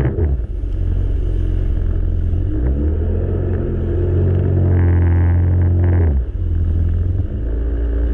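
Yamaha GP1800 jet ski's four-cylinder engine running under way, easing off briefly at the start and again near six seconds, each time picking back up in pitch.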